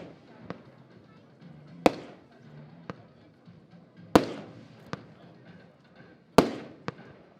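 Firework battery shots: a loud bang about every two seconds, three in all, each ringing out briefly. Each is followed by a fainter single crack.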